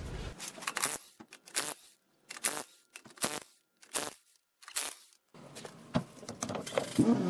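A cordless DeWalt impact wrench spinning lug nuts off a truck wheel in a series of short bursts, about seven in the first five seconds with silent gaps between them. Softer handling noise follows as the wheel is pulled off.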